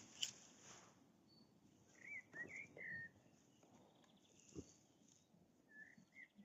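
Faint short bird chirps over near silence: a few quick whistled calls about two seconds in and a couple more near the end.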